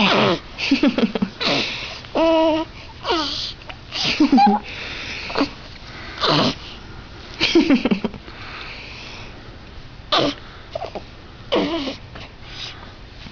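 A baby girl making a string of funny noises, about one a second: short pitched squeals that slide up and down, mixed with breathy gasping sounds.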